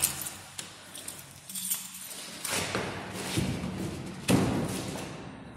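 Footsteps along a hard, shiny corridor floor, a step roughly every second, with the loudest step about four seconds in.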